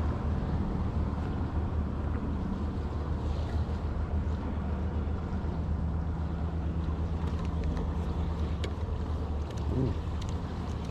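A motor running steadily with a low, even drone, under light wind on the microphone and a few faint clicks.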